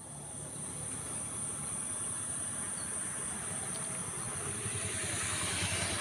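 Insects droning steadily on one high, thin pitch, with a motorcycle engine growing louder near the end.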